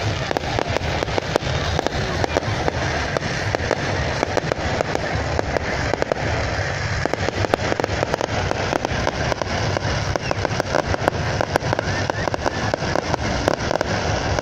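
Fireworks display going off: a continuous fast crackle of many small pops and cracks, with louder sharp reports scattered through it.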